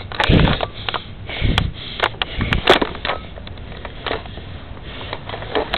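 Handling noise from a camera carried while moving: scattered sharp clicks and rustles, with two low thumps in the first second and a half.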